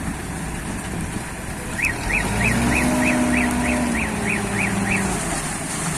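Diesel engine of a self-loading concrete mixer running, revving up about two seconds in and easing back near the end. A rapid series of about ten short, high chirps sounds over the revving.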